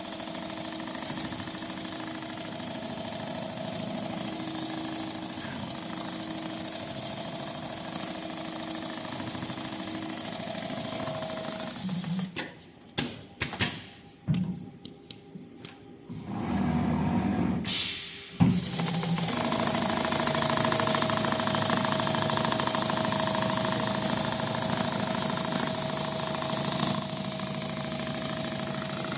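Computerized rotating-head sewing machine running steadily as it stitches a pattern into leather. It stops about twelve seconds in, with a few clicks and a short low hum during the pause, and starts stitching again about six seconds later.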